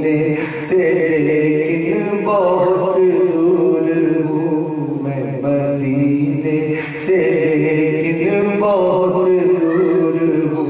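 A man singing a devotional chant unaccompanied into a microphone, in long held notes that glide up and down. One phrase gives way to the next about seven seconds in.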